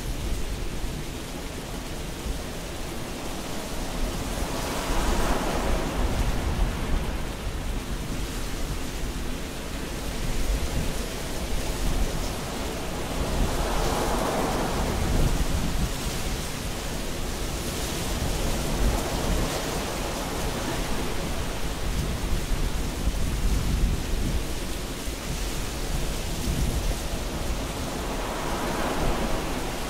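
Thunderstorm: steady rain hiss under three slow swelling rumbles of thunder, about five seconds in, around the middle and near the end.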